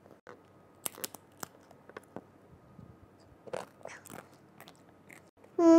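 A child biting into and chewing a crispy baked wonton-skin cup: sharp crunches about a second in and again between three and four seconds in.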